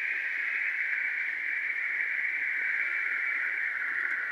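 Steady, unbroken drone of an insect chorus, sinking slightly in pitch over the seconds.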